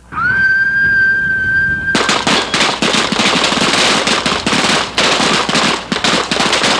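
A whistle sounds one steady blast of about two seconds. Then a firing line of .38 caliber revolvers opens fire together: many overlapping shots in quick succession.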